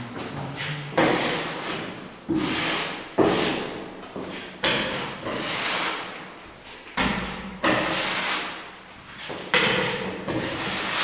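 Steel putty knife scraping gypsum filler into a plasterboard seam: a series of scraping strokes, about eight, each starting sharply and trailing off, roughly one a second.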